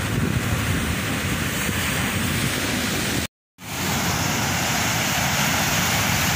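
Steady rush of rough surf breaking on a rocky shore, mixed with wind on the microphone. A brief dead silence a little past halfway breaks it, then the rush resumes.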